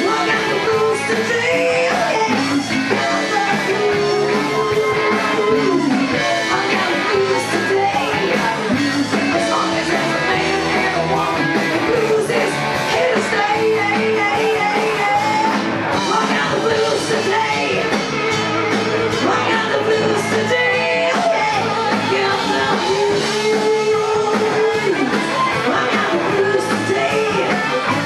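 Live rock band playing: drums, electric guitars and bass, with singing.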